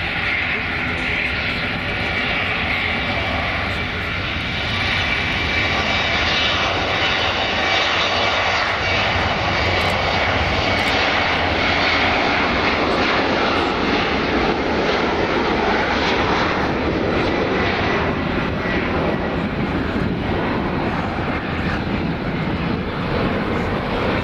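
The four Engine Alliance GP7270 turbofans of an Airbus A380-861 running at taxi power as the airliner rolls along the taxiway: a loud, steady rush of jet noise with a faint high whine over it, growing a little louder after about five seconds.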